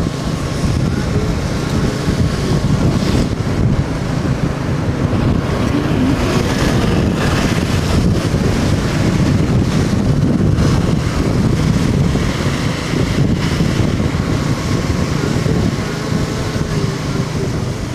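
Steady wind rushing over the microphone of a motorcycle riding in the rain, with the motorcycle's engine and road noise beneath it.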